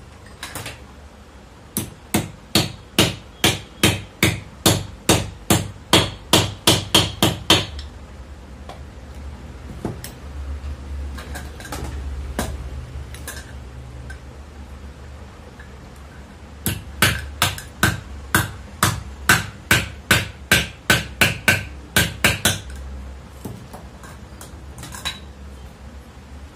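A hammer strikes metal in two quick, even runs of about three blows a second, each run lasting about six seconds, as a new bearing is tapped into place in a ceiling fan's end cover.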